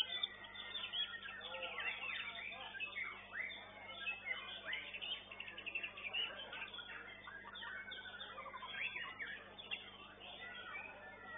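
White-rumped shamas (murai batu) singing in competition: a continuous stream of short whistled notes sliding up and down, with several birds' songs overlapping.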